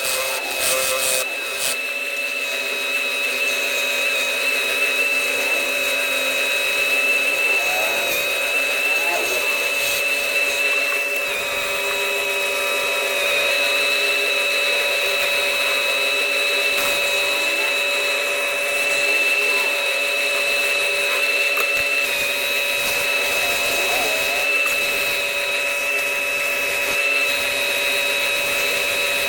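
CNC machine running steadily with a constant high-pitched whine over an even machining noise.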